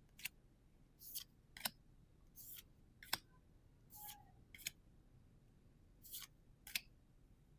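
Trading cards being slid off a stack by hand, with short paper swishes and sharp ticks, mostly in pairs about half a second apart.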